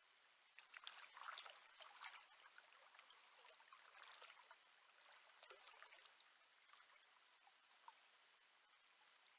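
Faint splashing and trickling water in a trout river, busiest in the first two seconds, with a few smaller splashes later.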